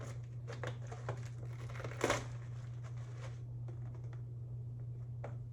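Paperboard box of cotton rounds being handled and worked open by hand: scattered crinkles and light taps, with one louder rustle about two seconds in, over a steady low hum.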